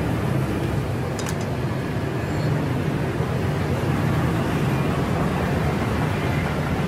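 Steady street din, like traffic, with a low hum. A couple of faint clicks come about a second in.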